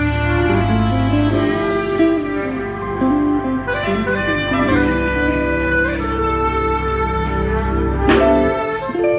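Live band playing: a saxophone carries the melody over electric guitar, with low held bass notes and sharp percussive hits underneath.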